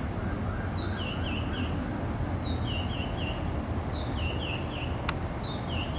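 A songbird sings a short phrase four times, about every one and a half seconds: one high note, then three quick falling notes. A steady low rumble runs underneath.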